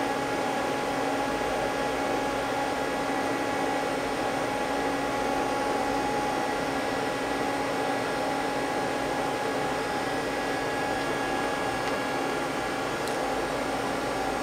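Steady hum and hiss of a powered-up Mazak CNC lathe standing idle, its fans and electrics running with a few steady tones.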